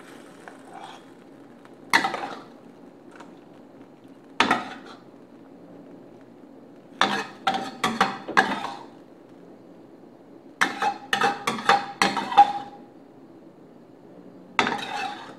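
Metal spatula scraping and knocking against a steel wok and plate as stir-fried luffa is scooped out. The sound comes in scattered strokes: single knocks about two and four and a half seconds in, quick runs of scrapes and taps around seven to nine and eleven to twelve and a half seconds in, and one more near the end.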